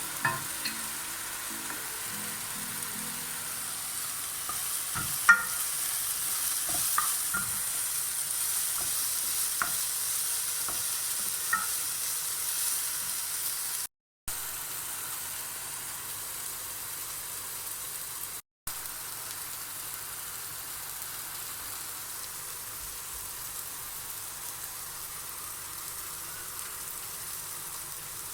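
Food sizzling and frying in a pan, a steady hiss, with sharp clicks and taps from a utensil stirring it during the first dozen seconds. The sound cuts out twice, briefly, past the middle.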